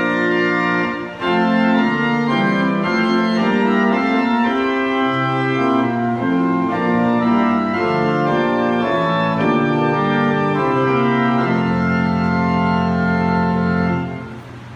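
Edmund Giesecke pipe organ playing a passage on its principal chorus with the 12th drawn. There is a brief break about a second in, and it ends on a long held chord shortly before the end.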